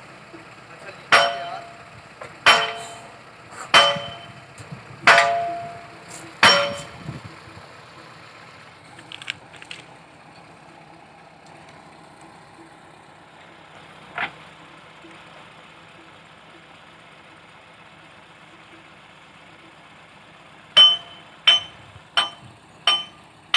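Ringing metal-on-metal clangs at a JCB backhoe loader's boom: five strikes about a second and a half apart, then a quicker run of four near the end. A faint steady engine hum runs underneath.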